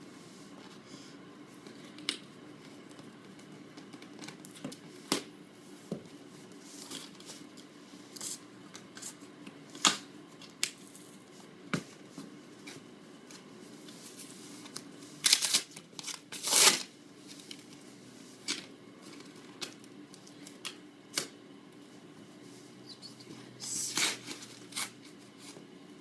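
A shipping package being opened by hand: scattered taps and rustles of packaging, with a few short tearing bursts, the loudest two-thirds of the way through and again near the end.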